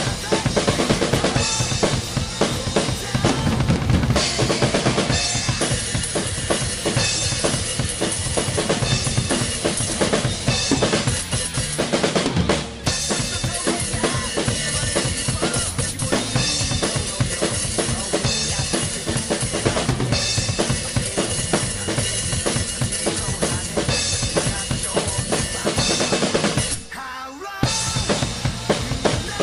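Acoustic drum kit with Sabian cymbals played hard in a driving rock beat: bass drum, snare and cymbal crashes. The playing breaks off for about half a second near the end, then comes back in.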